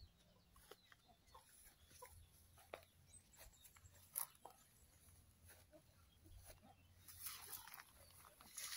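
Near silence: faint outdoor background with a few scattered small clicks and a brief soft rustle near the end.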